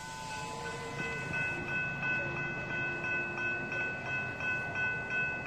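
Railroad grade-crossing warning bell ringing steadily at about three strikes a second, heard from inside a car at the crossing. It grows louder over the first second. The bell sounds while the gates are down, warning of an approaching train.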